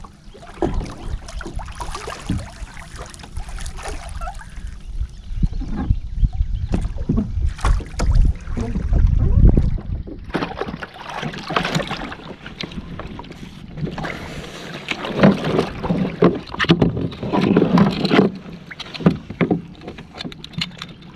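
Water splashing and sloshing against a kayak's hull as a man in the water beside it struggles to climb back aboard, with irregular knocks on the hull. Wind rumbles on the microphone throughout, and the splashing is heaviest in stretches in the second half.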